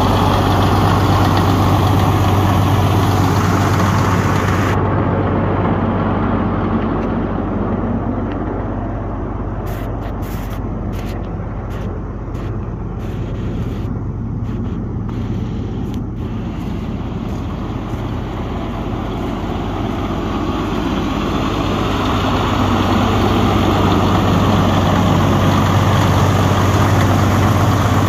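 Caterpillar motor grader's diesel engine idling steadily with a deep, even hum. It is louder at first and near the end, and fainter through the middle.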